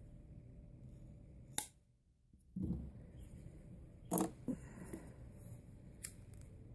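Handling noises from paracord crafting tools and cord: a sharp click about a second and a half in, a soft low thump about a second later, and a few more sharp clicks after that.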